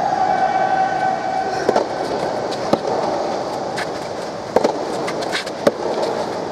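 Soft tennis rally: a rubber ball struck by rackets, with four sharp pops about a second or two apart, over a steady background hum. A held tone in the background fades out about two seconds in.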